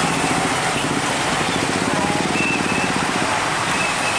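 Road traffic with truck engines running: a steady, dense noise with a fast, even engine pulse underneath.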